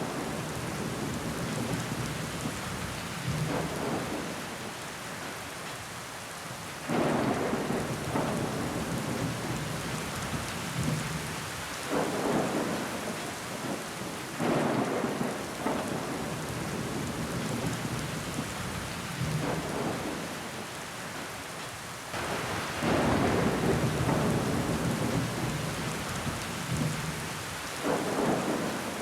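Steady rain on window glass, an even hiss, with louder swells about every five seconds.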